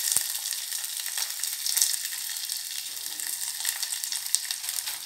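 Ghee tempering (tadka) sizzling in a small steel pot: mustard seeds, curry leaves, green chilli and chopped ginger frying with a steady hiss and scattered crackles, and a single click just after the start.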